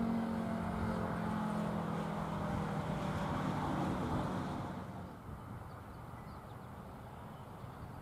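Mid-to-late-1950s Thunderbolt 1000T three-phase siren winding down after its run: its low tone fades under a noisy whir from the spinning rotor. Both die away about four to five seconds in, leaving faint background.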